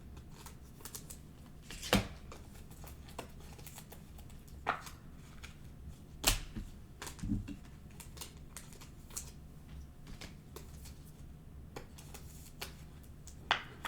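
Trading cards being handled and set down on a table: scattered light clicks and taps, with sharper ones about 2 and 6 seconds in.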